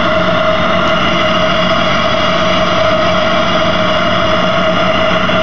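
Eberspächer Espar D5 diesel-fired engine heater running: a loud, steady whistle with a constant hum beneath it, unchanging throughout.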